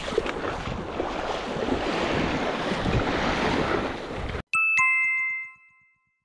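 Small waves washing up on a sandy shore, heard with some wind on the microphone. About four and a half seconds in, the surf cuts off abruptly and a two-note chime sounds, a high note then a slightly lower one, ringing out and fading within about a second.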